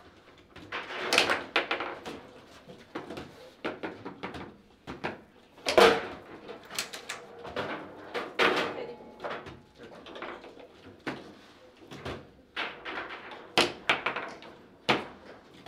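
Table football (foosball) game in play: the ball cracking against the plastic players and the table walls, and the metal rods sliding and knocking, in an irregular run of sharp knocks. The loudest knock comes about six seconds in.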